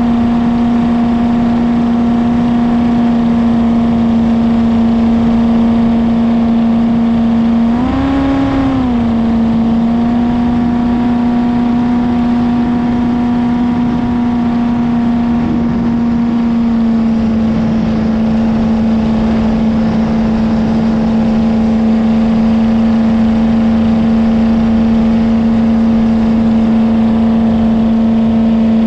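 Jet boat engine running steadily at cruising speed, with a brief rise in revs about eight seconds in before it settles back.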